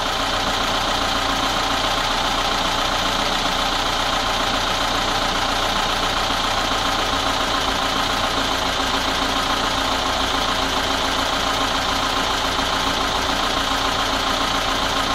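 VAZ-21213 Lada Niva engine idling steadily with a light ticking, heard after a valve adjustment and timing-chain tensioning; the owner thinks the ticking is the camshaft.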